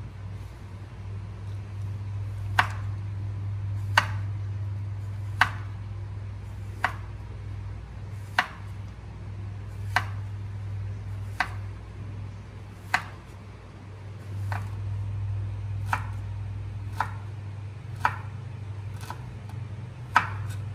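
Chef's knife slicing through zucchini and striking a wooden cutting board: single, separate knocks, about one every one and a half seconds, a little quicker toward the end. A steady low hum runs underneath.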